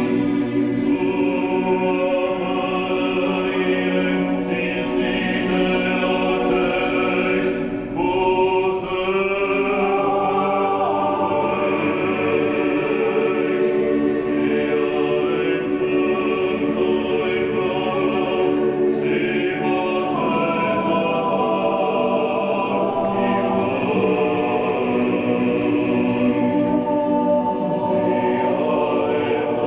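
A choir singing unaccompanied, holding long notes in several voices and moving from chord to chord every few seconds.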